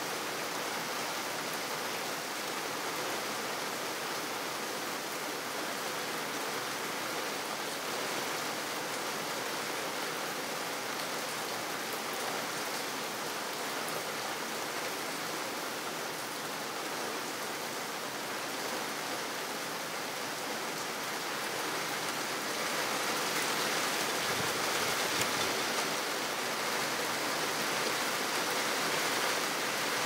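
Steady rain falling on wet pavement, an even hiss of drops that grows a little heavier about two-thirds of the way through.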